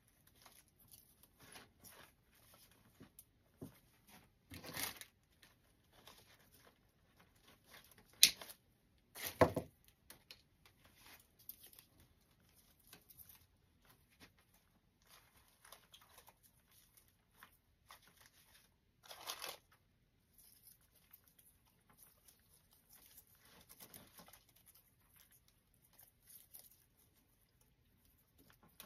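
Rustling and crinkling of artificial flower stems and grapevine being handled and pushed into a wreath, with scattered small clicks and a few louder snaps and knocks, the sharpest about eight seconds in.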